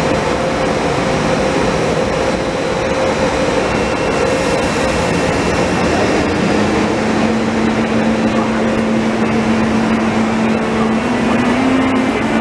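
DB Class 182 Siemens Taurus electric locomotive starting to pull away, its cooling blowers hissing steadily. A held whine from its traction equipment drops to a lower note about six seconds in and begins stepping up near the end as it gathers speed: the start of the Taurus's stepped 'singing' pull-away.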